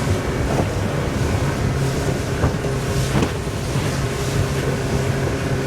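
Motorboat engine running steadily underway, with wind buffeting the microphone and water rushing past the hull. A few sharp slaps of the hull on the chop come through it.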